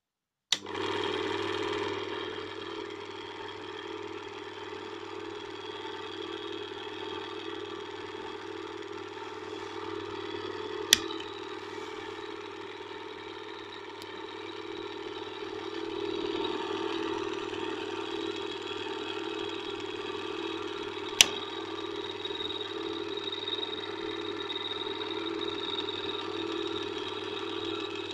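Rolls R1 8mm film projector switched on with a sharp click about half a second in, then its motor and mechanism running steadily with a low hum. Two more sharp clicks come later, about ten seconds apart.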